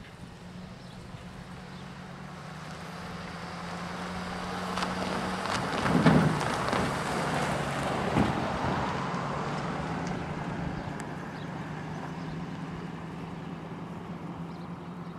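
A pickup truck driving past on the road, its engine and tyre noise growing louder, peaking about six seconds in, then fading. A steady low hum carries on underneath.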